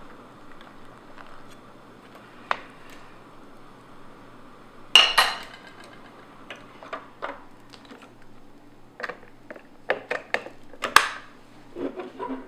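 Metal spoon and ceramic-coated pot clinking and knocking: a single click about two and a half seconds in, a loud clatter about five seconds in, and a quick run of sharp clinks around nine to eleven seconds. Duller knocks come near the end as the pot is lifted off the portable gas stove's grate.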